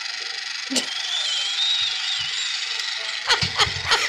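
Small motor of a toy nail-polish machine whirring steadily as it runs, then stopping about three seconds in. A few clattering knocks follow.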